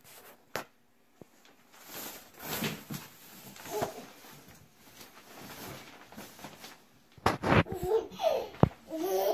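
Soft rustling and light bumps in a small, echoey room, then a baby babbling and squealing from about seven seconds in.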